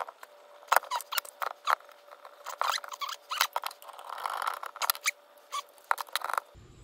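Irregular small clicks, taps and light rattles of metal parts being handled: a brass proportioning valve, its bolts, nuts and washers being fitted to a steel bracket by hand.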